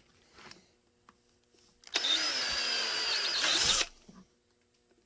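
Electric drill boring a screw hole through a Kydex holster: one steady run with a high whine of about two seconds, starting about two seconds in and stopping sharply.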